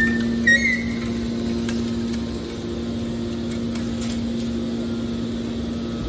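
Hydraulic scrap metal baler's power unit (electric motor and hydraulic pump) running at a steady hum, with a brief high squeak in the first second.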